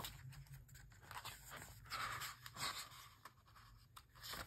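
Pages of a glossy photo book being turned by hand: soft paper swishes and rustles, the clearest about two seconds in.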